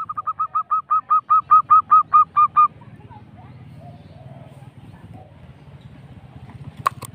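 Zebra dove (perkutut) singing a fast rolling run of about fifteen short coos, growing louder, over the first few seconds. A low steady hum sits underneath, and two sharp clicks come near the end.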